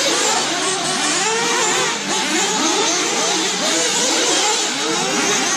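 Several racing RC cars' motors revving up and down at once, many overlapping rising and falling pitches.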